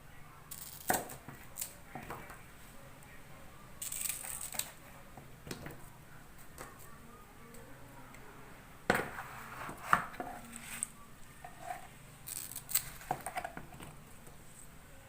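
Taro leaves and stalks being cut and handled: scattered sharp clicks and snaps, a couple of louder knocks, and a short rustle of leaves.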